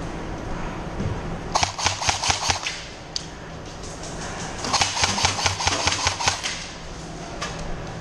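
Airsoft guns firing two bursts of rapid clicking shots, one about a second and a half in and a longer one near five seconds in.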